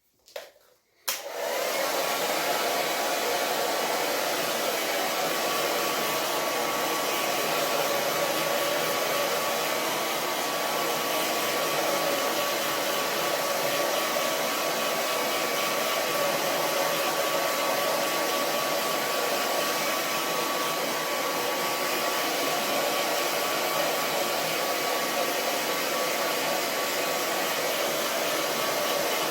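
Handheld hair dryer switched on about a second in, after a short sound, then blowing steadily with an even rushing noise and a faint steady whine.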